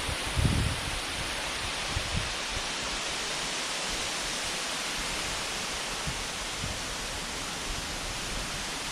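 Steady rushing of Waimoku Falls, a tall waterfall, heard as an even wash of noise. A few low thumps come in the first two seconds.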